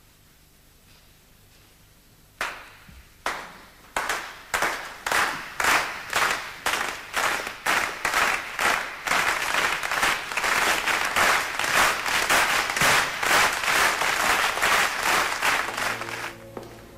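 A crowd claps in unison. A few separate claps come first, then the clapping quickens and swells into loud rhythmic applause, about two claps a second. It stops suddenly near the end, as music with low sustained tones begins.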